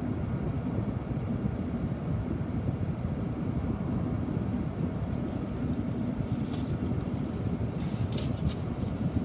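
Steady low rumble of road noise heard inside a moving car. There are brief hissy patches about six and a half and eight seconds in.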